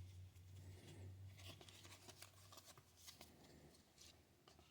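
Near silence, with faint scattered ticks and rustles of trading cards being handled.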